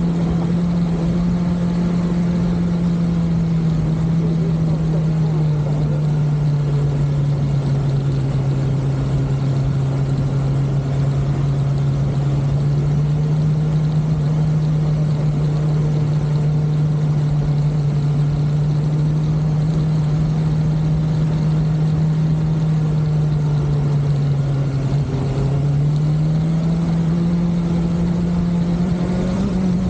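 BMW S1000XR motorcycle's inline-four engine running at a steady cruise, its pitch holding mostly level. Near the end the pitch drops briefly, then climbs again as the throttle opens.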